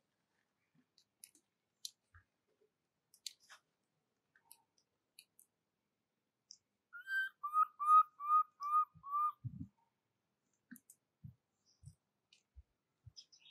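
A short run of about six clear whistled notes, evenly spaced and each rising then falling, lasting about two seconds past the middle, over faint scattered clicks and ticks. A dull low thump follows the last note.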